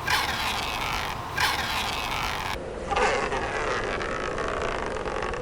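Red adhesive-tape backing being peeled off an angry-eyes headlight trim piece: three long rasping pulls, each starting sharply and lasting about a second and a half.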